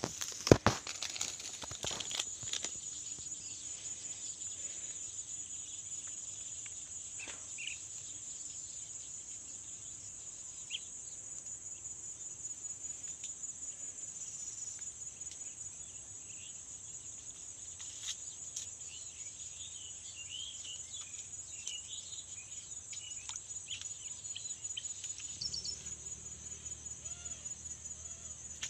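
Insects trilling in a steady, high-pitched, rapidly pulsing drone, with scattered short bird chirps in the second half. A sharp knock sounds about half a second in, and a low rumble comes in near the end.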